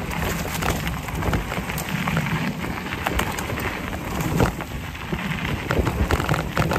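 Mountain bike rolling fast down a dirt singletrack: tyres crunching over loose dirt, gravel and leaf litter, with many small clicks and rattles over a steady low rush.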